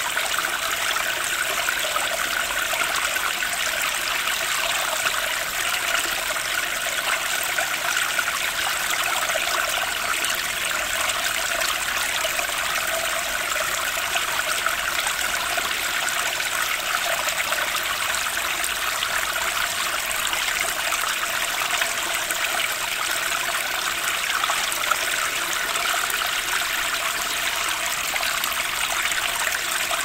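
Flowing water of a stream running steadily and evenly, with no breaks or separate events.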